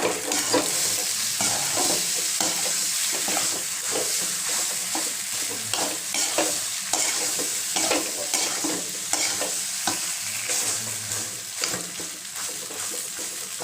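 Macaroni pasta being stirred with a spatula in a hot pan of fried egg and masala: a steady frying sizzle with frequent irregular scrapes against the pan.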